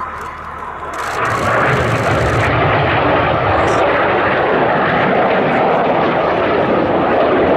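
Jet roar of a BAe Hawk T.1's Adour turbofan in a low, fast flypast. It swells sharply about a second in, then holds as a steady, loud roar.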